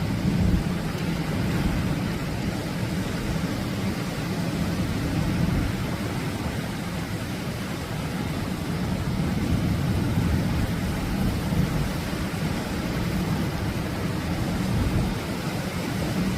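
Atlantic surf breaking and washing up a beach: a steady rushing noise, heaviest in the low end, that swells and eases every few seconds.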